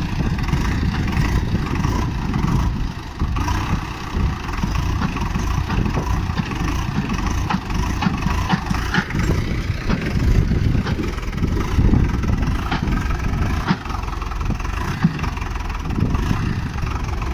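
Standard DI 450 tractor's diesel engine running steadily under load while the tractor is stuck, its rear wheels churning in deep mud.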